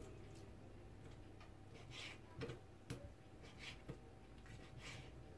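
Kitchen knife slicing raw chicken breast and knocking on a wooden cutting board: a handful of faint, irregular soft knocks, one a sharper click.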